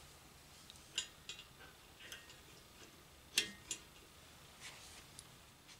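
Light metallic clicks and taps as a hairpin R-clip and pin are fitted where a truck mounts to a steel tender frame. There are a handful of scattered sharp ticks, the loudest about three and a half seconds in.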